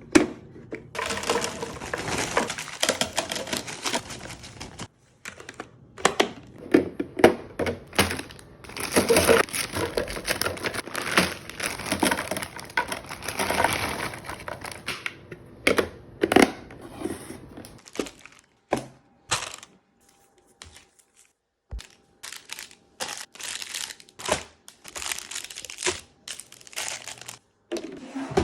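Plastic packaging of frozen food crinkling and rustling while it is handled, with plastic storage containers and items being set down in sharp knocks and clunks.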